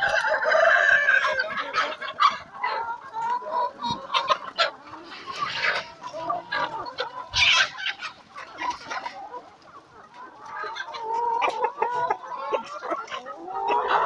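A large flock of Kuroiller chickens clucking and calling while feeding on fresh greens, with a long call over the first two seconds and a sharp, high squawk about halfway through.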